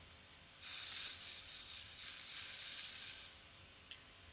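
Diamond painting drills swishing and rattling in a plastic diamond grinder tray as it is shaken to line them up in the ridges. One dense hiss lasting about three seconds, then a small tick.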